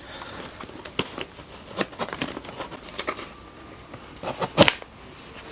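A shipping package being opened and handled by hand: scattered rustles and light clicks, with a louder clatter about four and a half seconds in.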